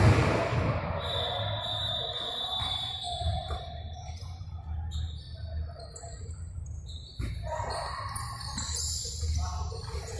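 Futsal ball being kicked and bouncing on an indoor court, the knocks echoing around a large hall, with a loud thump right at the start.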